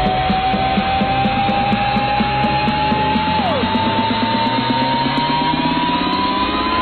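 Background music: a long held note slides slowly upward, breaking off with a quick drop about halfway through before picking up again, over a fast, even rhythmic accompaniment.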